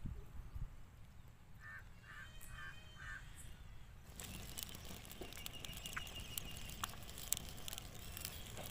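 Four short calls from a bird in quick succession, about two seconds in. From about four seconds in, dry palm fronds crackle and pop as they burn under the plucked chicken being singed, with a thin steady high tone behind.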